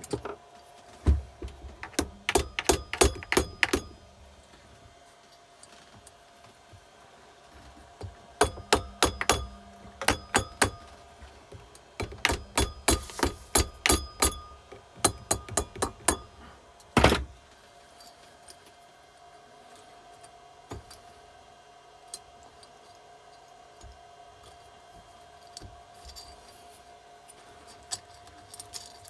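Runs of rapid metallic clicks and knocks from hand tools and engine parts being worked, three bursts with quiet pauses between them, then a single heavier knock.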